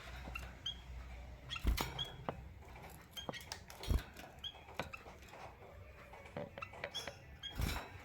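Small caged finches, a canary and a white-headed munia, giving short high chirps at irregular intervals while hopping about the cage, with light taps and scratches on perches and wire and a few dull thumps.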